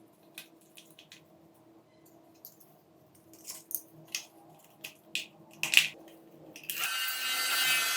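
Small plastic clicks and taps of a handheld fan being handled, then near the end the fan's small electric motor switches on and runs with a steady whir.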